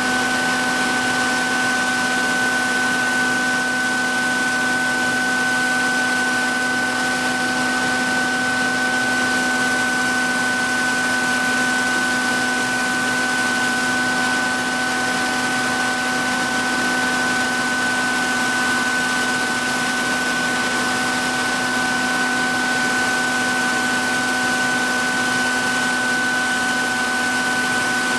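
Electric motor of a powered knife-sharpening machine running steadily, a constant hum and whine over an even hiss that does not change.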